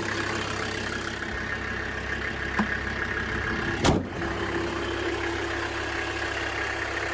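Mercedes OM617 five-cylinder turbo diesel idling steadily. About four seconds in, the hood is slammed shut with a single loud bang.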